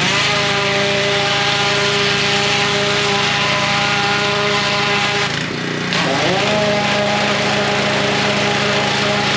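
Gas-engine pressure washer running steadily, with the loud hiss of its spray. The spray cuts out for about half a second a little after five seconds in, then starts again.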